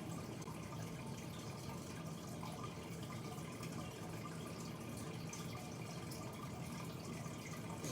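Faint steady background noise with a low hum, no distinct events: room tone.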